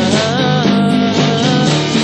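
A passage of a lo-fi, four-track-recorded psychedelic indie pop song, with a pitched lead line that slides between notes over steady held chords and bass.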